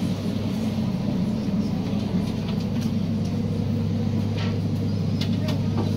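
Steady low hum of an ADP-class diesel railcar standing idle, heard from inside the carriage. A few faint knocks near the end.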